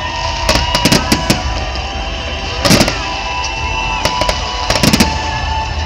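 Aerial firework shells bursting in an irregular string of sharp bangs and crackles, with the loudest bang about three seconds in.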